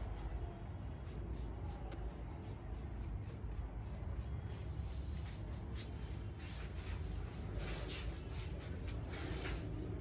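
Hair brush with stiff bristles sweeping through a client's hair, stroke after stroke, each stroke a short swish, quickening in the second half, over a steady low hum.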